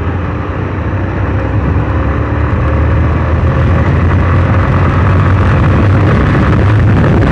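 Hero ZMR motorcycle being ridden: steady engine and riding noise that grows louder over the first few seconds.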